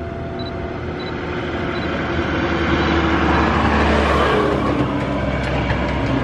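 A motor vehicle passing close by: its noise swells to a peak about four seconds in and falls away with a dropping pitch, over a steady low engine hum.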